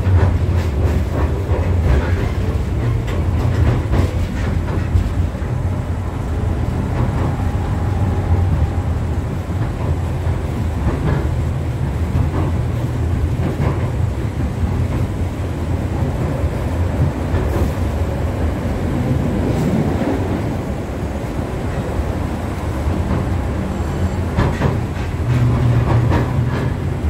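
Articulated 71-631-02.02 low-floor tram running along the track, heard from inside the passenger saloon: a steady low rumble of wheels on rails, with scattered clicks and knocks.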